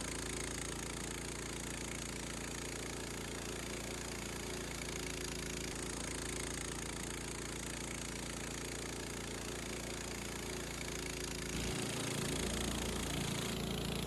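Gas engine of a Harbor Freight band sawmill running steadily with a mechanical drone, its pitch and low end shifting near the end.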